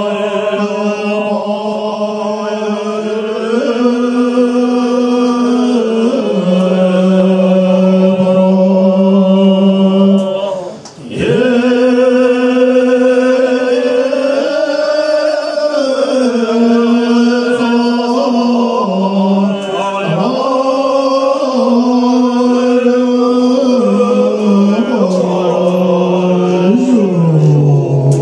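Tibetan Buddhist monks chanting together in unison, a melodic chant of long held notes that step up and down in pitch, with a short pause for breath about eleven seconds in.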